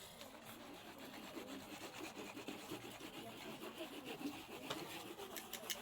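Ingredients being rasped by hand, grated or crushed, in a steady run of quick back-and-forth scraping strokes, with a few sharp taps near the end.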